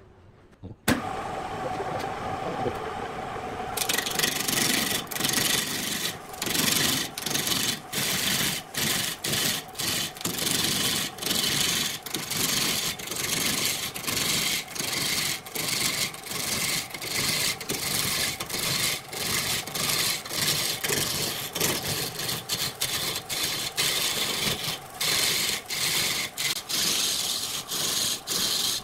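Wood lathe starting with a sudden clack about a second in, then its motor humming as the octagonal wooden blank spins up. From about four seconds a turning tool cuts into the spinning wood, a loud scraping hiss broken by many short gaps as the tool bites and lifts, roughing the blank down to a cylinder.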